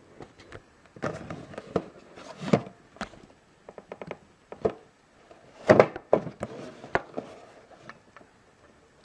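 A hexagonal cardboard figure box being handled and turned close to the microphone: irregular rustles, taps and knocks, loudest in two clusters, about two and a half seconds in and about six seconds in.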